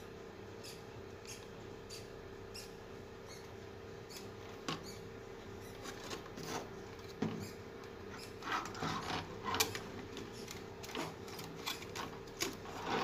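A TV circuit board and its attached wires being handled and turned over: scattered small knocks, rubs and clicks, busier in the second half, over a steady hum.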